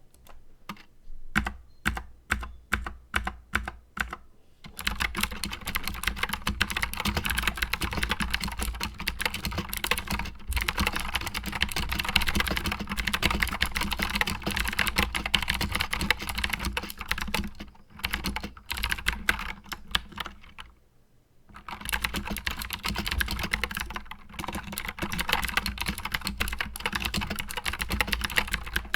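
Anne Pro mechanical keyboard with clicky Gateron Blue switches and stock keycaps being typed on: a few slow, separate keystrokes at first, then fast continuous typing, broken by two short pauses later on.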